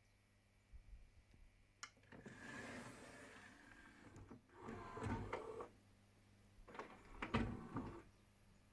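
Small motors and gears in a Pioneer HLD-X9 LaserDisc player's mechanism whirring in three runs of a second or two each, with a click just before the first run.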